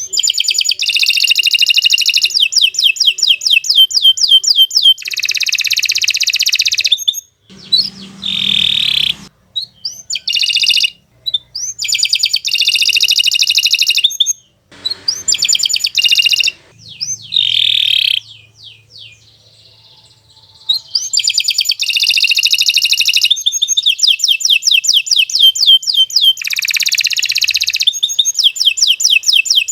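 Domestic canary singing long, fast phrases of rapid trills and rolls, one after another with short breaks, and a longer pause about two-thirds of the way through.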